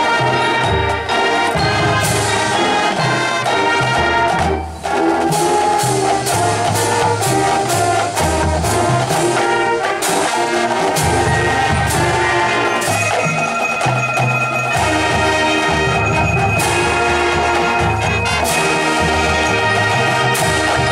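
Full high school marching band playing loudly, with trumpets and trombones holding chords over repeated drum hits. The music breaks off for a moment about four and a half seconds in, then carries on.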